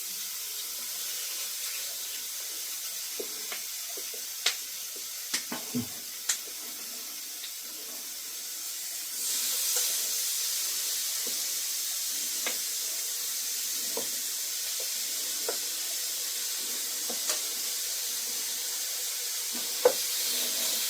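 Breaded chicken strips frying in hot oil: a steady sizzle with scattered sharp crackles and pops. About nine seconds in the sizzle grows louder and stays that way.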